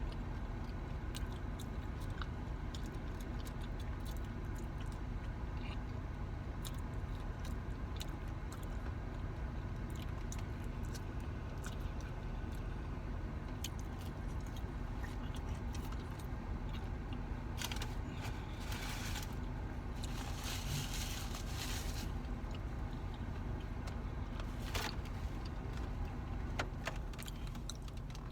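Close-up eating sounds: chewing and crunching with small clicks and crackles, and a stretch of paper-wrapper rustling about two thirds of the way through, over a steady low hum.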